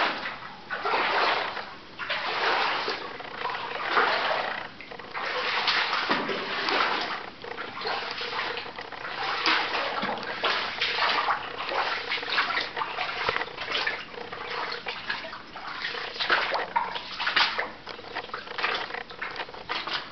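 Footsteps splashing and sloshing through shallow water on a mine gallery floor, a step about every second, quickening in the second half.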